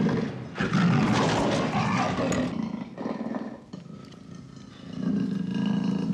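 Black leopard snarling and roaring in long bouts, dying down about three seconds in and rising again near the end.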